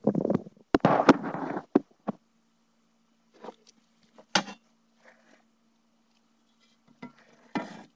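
Microphone handling noise: rustling and clunks for about two seconds as a boom mic is set down on a wooden workbench, then a faint steady hum with a few separate knocks as a steel armor plate and a small audio transducer are picked up and handled.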